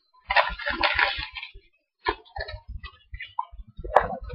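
Crinkling of a thin plastic card sleeve and small ticks and taps as a trading card is slid into a protector, with a sharper click about four seconds in.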